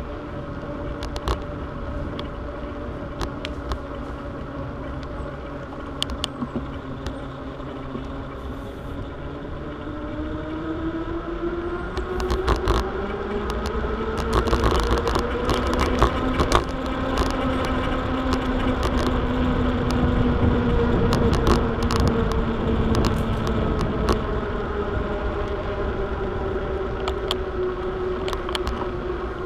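Bicycle rolling along a paved trail, with a low rumble and a humming tone. The hum climbs in pitch a third of the way in and then slowly sinks, following the bike's speed. Scattered clicks and rattles sound over bumps.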